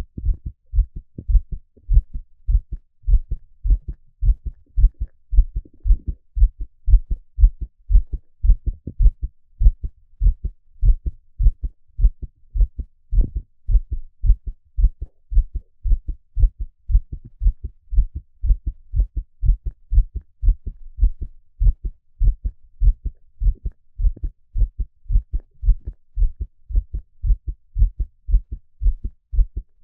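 A man's heartbeat, beating steadily in even lub-dub pairs of low, dull thuds.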